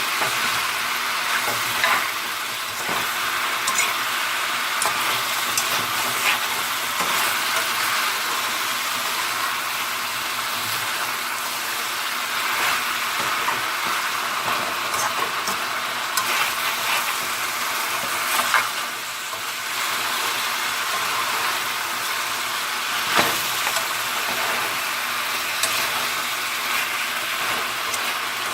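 Chicken pieces sizzling as they fry in a little oil in a pan, the fat coming out of the chicken, with a spoon or spatula scraping and stirring now and then.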